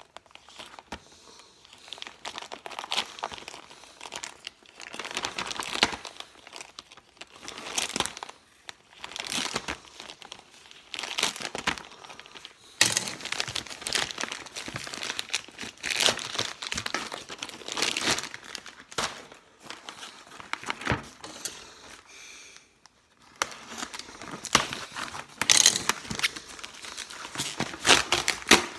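A plastic mailing envelope being torn open and crinkled by hand as the wrapped contents are pulled out. It gives irregular bursts of crackling and rustling, with a short lull about three-quarters of the way through.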